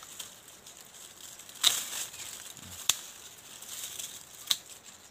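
Hand pruning shears snipping through serut (Streblus asper) branches: three sharp cuts, each a crisp snap, about a second and a half apart, with leaves rustling between them.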